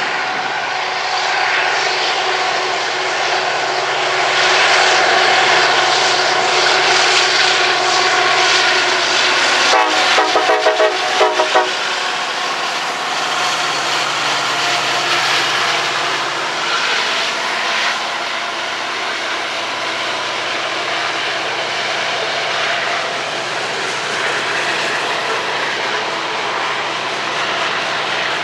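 Union Pacific diesel-electric freight locomotives running past with a steady engine drone, followed by the steady rolling noise of covered hopper cars. About ten seconds in, a quick run of five or six sharp clattering beats stands out.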